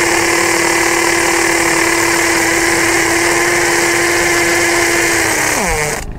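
Power drill boring a hole into a rendered masonry wall, its motor running at a steady pitch, then winding down with a falling pitch as the trigger is released near the end.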